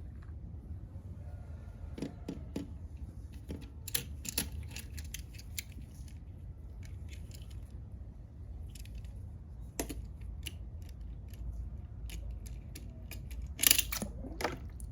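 Scattered light clicks and taps of small hard objects being handled over a steady low hum, with a louder pair of knocks near the end.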